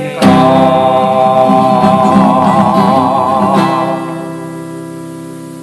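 Acoustic guitar chord strummed once and left to ring, fading away, under a held sung note with vibrato at the end of a hymn phrase; the voice drops out after about three and a half seconds.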